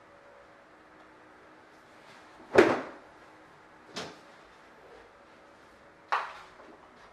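Three sharp clunks from a steam iron and metal ironing board being handled as a garment is laid out, the first the loudest, each dying away quickly.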